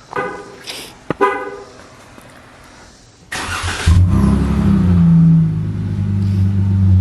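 Two short horn chirps, then the starter cranks a Dodge Charger with its exhaust resonators deleted for about half a second. The engine catches about four seconds in, flares briefly and settles into a loud, steady, deep idle.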